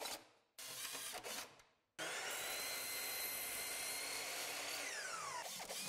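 Ridgid impact driver briefly driving a screw into a pressure-treated deck board, then a Bosch 12-inch mitre saw running and cutting through a deck board with a steady whine. Near the end the blade's whine falls as the saw spins down.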